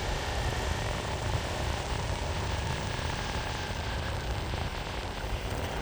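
Meepo Hurricane electric skateboard rolling at speed: a steady rumble of its honeycomb wheels on the road and wind buffeting the microphone, with a faint steady motor whine over it.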